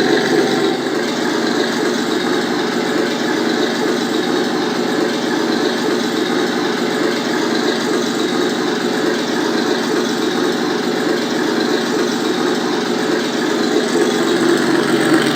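An RC tank sound unit playing a simulated Tiger I engine running steadily at idle through the model's speaker, with a fast, even pulsing throb.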